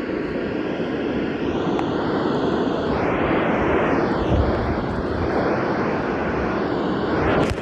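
Weather radio receiver hissing with steady static in place of the broadcast, its signal lost partway through a warning.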